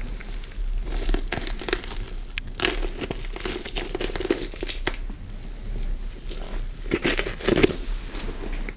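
Horror sound effect of skin being cut and peeled: irregular tearing and crinkling strokes, with louder clusters in the middle and about a second before the end, stopping abruptly.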